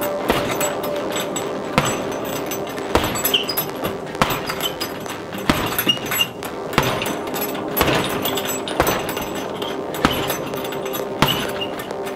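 Gloved punches landing on a chain-hung Everlast heavy bag, a thump about once a second, with the hanging chain clinking.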